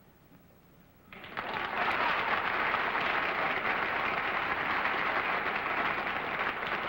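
Studio audience applauding, starting about a second in after a brief hush and going on steadily.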